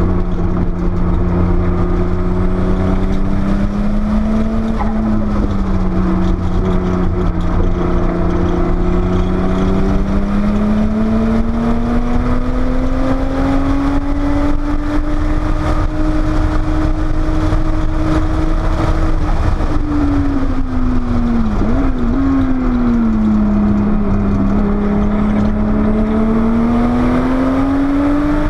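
Porsche 930 Turbo's air-cooled turbocharged flat-six running hard on track over a heavy low rumble. Its note climbs through a long pull, drops off about two-thirds of the way through with a brief blip as it slows, then climbs again and falls away near the end.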